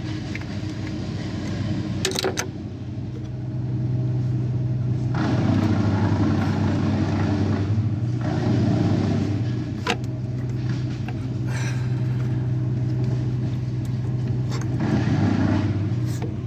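A steady low mechanical hum with a few sharp clicks, about 2, 10 and 16 seconds in, from small parts being handled during the repair.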